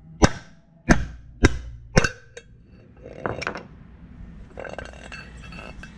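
Mini sledgehammer striking a steel bushing driver four times, about two blows a second, knocking a bushing out of a 200-4R transmission's direct drum. Lighter metallic clinks and rattles follow as the drum and tool are handled.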